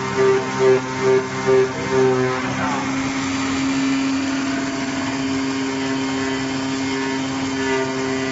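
CNC flat plotter cutting machine running while its tool head cuts 40 mm honeycomb cardboard: a steady mechanical hum. For the first two seconds one tone pulses about twice a second, then it settles into a steadier, slightly lower drone.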